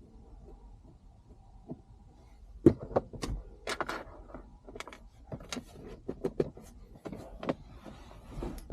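Irregular sharp clicks and light knocks, starting about two and a half seconds in: hand tools and small parts being handled while a car's center console trim is unscrewed.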